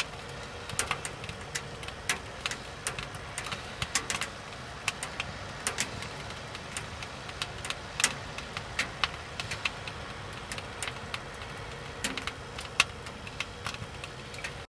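Firewood burning in a POMOLY Dweller Max 2.0 wood stove, crackling with irregular sharp pops, several a second, over a steady low background.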